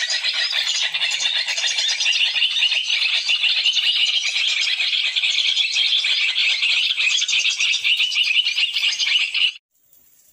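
Dense, steady chorus of insects such as cicadas, a fast pulsing buzz. It cuts off abruptly near the end.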